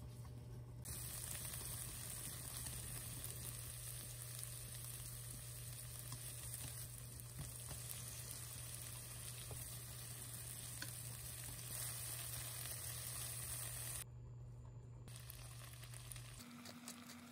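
Sliced garlic, green onion and shrimp frying in oil in a pan, a steady sizzle with chopsticks stirring. The sizzle cuts off abruptly near the end.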